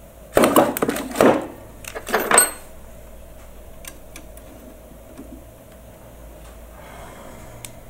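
Metal parts of a tool and cutter grinder's drill-sharpening attachment clattering and scraping as the drill bit holder is handled and adjusted: three short bursts in the first few seconds, the last with a light metallic ring, then a few faint ticks.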